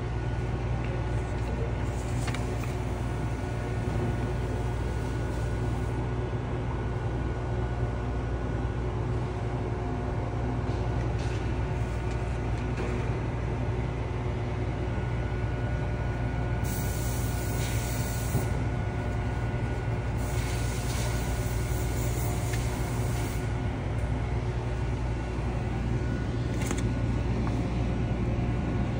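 Steady hum of car wash machinery with a faint steady whine over it. A little past halfway come two hissing bursts, about two and three seconds long.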